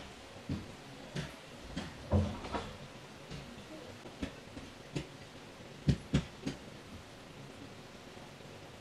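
A string of irregular light knocks and clicks, about a dozen in the first seven seconds and loudest as a pair near six seconds in, over a faint steady hiss.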